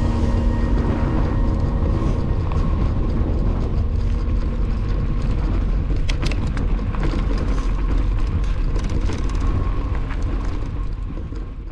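Mountain bike rolling over dry grass and gravel, with a steady low rumble of wind on the microphone. A cluster of sharp clicks and rattles from stones comes about halfway through. The sound fades out near the end.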